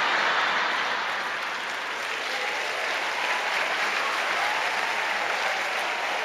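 A large theatre audience applauding and laughing. The applause breaks out at once and holds steady.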